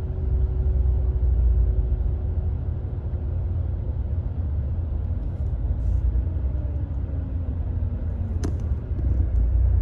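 Steady low rumble of a motor vehicle, with a faint falling whine from about six seconds in and a sharp click near the end.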